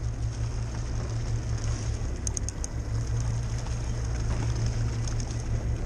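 Fishing boat's engine running steadily with a low hum, and a few faint high clicks about two seconds in.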